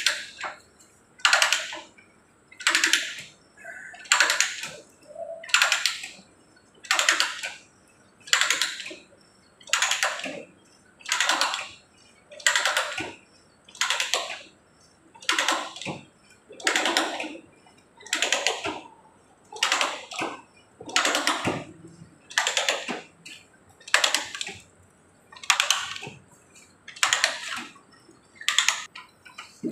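Hand ratchet die stock cutting threads on a metal pipe: a rasping scrape with each stroke of the handle, evenly repeated about every second and a half, around twenty strokes in all.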